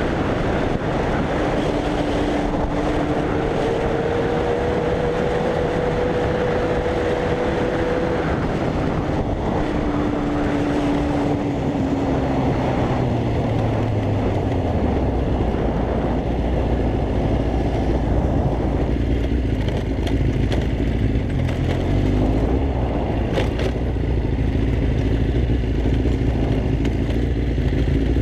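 Sport motorcycle engine running under way, with wind rushing over the microphone. The engine note climbs slowly for the first several seconds, drops about halfway through as the bike slows, then stays low and steady.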